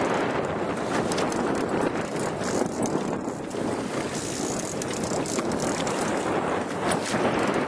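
Boat under way on open water, its motor and the rush of wind and water making a steady noise, with wind buffeting the microphone.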